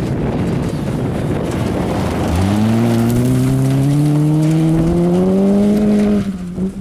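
Peugeot 306 rally car passing at speed on gravel. At first there is a rushing noise. About two seconds in, its engine comes in loud at high revs, climbing steadily in pitch as it accelerates, and breaks off near the end.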